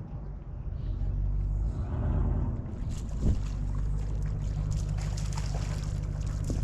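Wind buffeting the microphone over a steady low hum, with a stronger, hissier gust from about halfway through and a single knock just after it starts.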